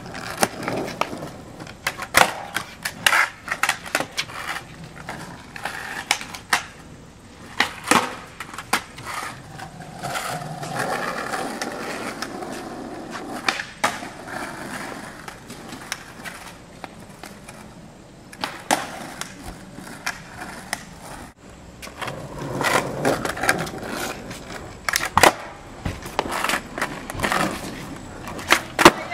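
Skateboard on asphalt: the wheels roll and grind, and the board lands or hits the ground with many sharp clacks during flatground tricks.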